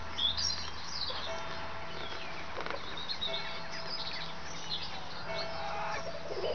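Small songbirds chirping and singing in quick high sweeps, densest in the first second, over a backyard chicken flock's soft clucks and calls.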